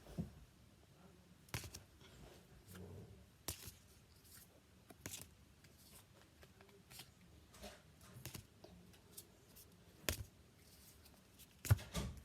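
Pokémon trading cards being handled and flipped through one after another: short papery clicks and slides about every second, with the loudest cluster near the end.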